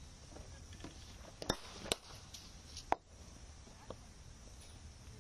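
Three sharp knocks of a cricket bat hitting balls in the practice nets: two about half a second apart a second and a half in, and a ringing one near the three-second mark.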